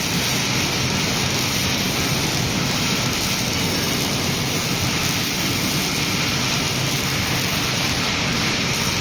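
Welding arc of a collaborative welding robot on steel, crackling and hissing steadily without a break.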